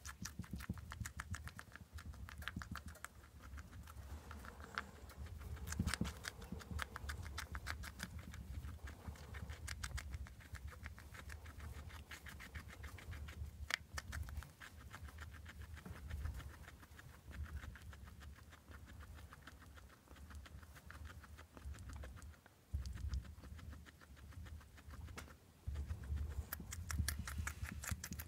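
A skinny pig (hairless guinea pig) chewing a juicy cherry tomato: rapid, moist clicking and munching that runs on steadily.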